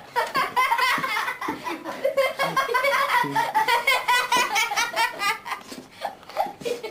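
A person laughing hard and high-pitched, in quick repeated breaths of laughter.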